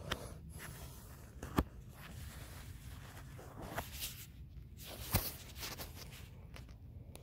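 Handling noise from a phone camera being moved about against camouflage clothing: rustling, with three sharp clicks, the loudest about a second and a half in.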